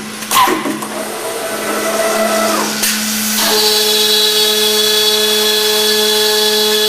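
CNC boring and routing machine at work: a couple of sharp mechanical clacks near the start, then its tool spindle spins up and runs at steady high speed with a high-pitched whine from about halfway in, over a steady machine hum.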